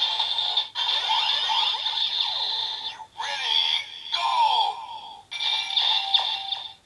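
DX Build Driver toy belt playing its electronic finishing-move sound effects and music through its small speaker. It gives a run of swooping synthesized tones, broken by a few short pauses.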